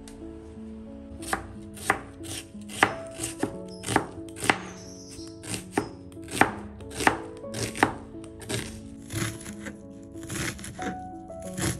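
Kitchen knife slicing an onion on a plastic cutting board: a run of sharp, uneven knocks, about two a second, starting about a second in, over soft background music.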